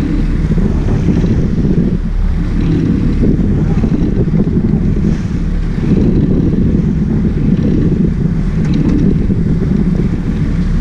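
Wind buffeting the microphone over the steady low rumble of a sport-fishing boat's engines, with water churning at the stern.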